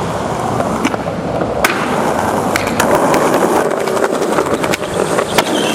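Skateboard wheels rolling over hard ground, with several sharp clacks of the board striking the ground.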